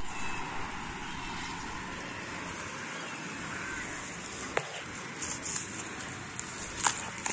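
Steady outdoor background noise with a few sharp clicks, the loudest near the end.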